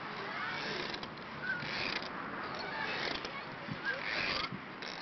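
Rushing wind noise on a phone microphone, swelling and fading about once a second as a playground nest swing carrying children moves back and forth, with faint children's voices.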